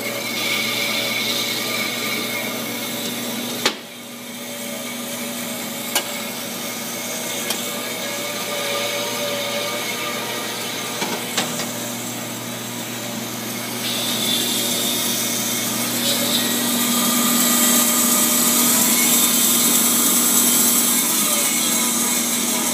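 DoAll 36-inch vertical band saw running on its DC drive while its blade speed is being dialed in on the rheostat: a steady hum and hiss with a few sharp clicks. It grows louder and hissier about two-thirds of the way through.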